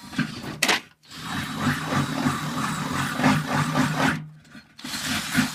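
Power drill boring a hole through a car's fender, the bit grinding through the panel in three runs, the longest about three seconds, over the steady hum of the drill motor.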